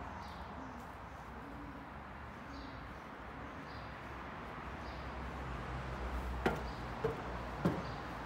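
Faint bird calls over a steady low background hum, with two or three sharp knocks near the end.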